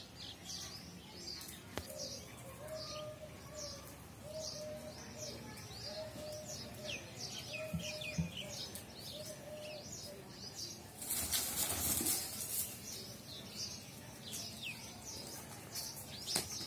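Wing flapping from sparring peacocks, a noisy burst of about a second and a half roughly eleven seconds in. Small birds chirp continually throughout, and a repeated low call sounds in short notes during the first seven seconds or so.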